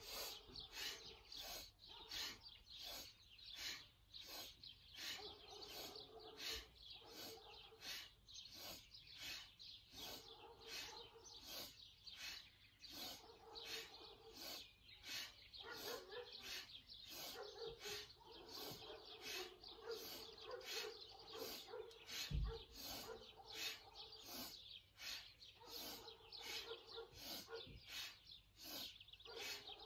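Faint garden ambience of small birds chirping over and over, with a single low thump about two thirds of the way through.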